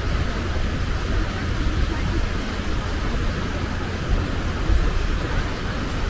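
Wind buffeting the microphone as a low, uneven rumble, over a steady hiss of small sea waves breaking on the beach.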